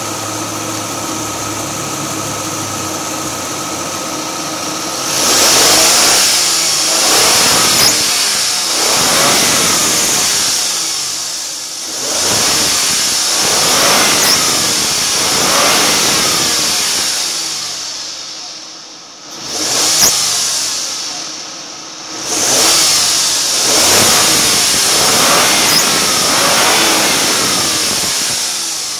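Suzuki Grand Vitara engine running with its accessory belt and A/C compressor turning: a steady idle for about five seconds, then revved up and down again and again. The A/C compressor is running with a fault that the owner is trying to show.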